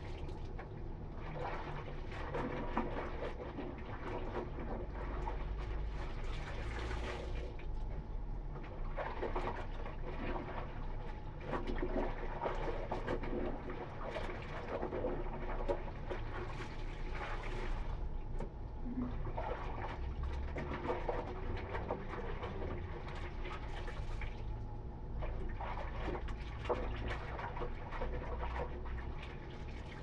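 Water splashing and trickling as wet clothes are hand-washed in a plastic basin: squeezed above it so water streams back down, then swished and plunged in the water, in irregular splashes throughout.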